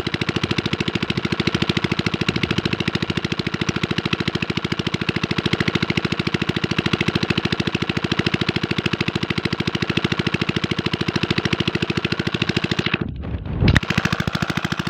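Chinese-style single-cylinder diesel engine driving a water pump, running steadily with an even, rapid chug. Near the end a brief low rumble drowns it out for under a second.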